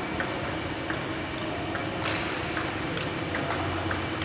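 Scattered light clicks of table tennis balls bouncing, irregularly spaced, over the steady hum of a large hall.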